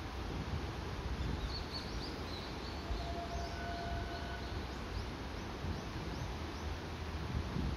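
Small birds chirping with short, high calls over a steady low background rumble, with one brief steady whistle-like tone about three seconds in.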